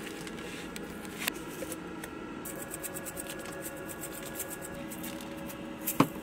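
Spice grinder being worked over a raw steak: a run of rapid, fine clicking for about three seconds, with a single click about a second in and a sharp knock near the end.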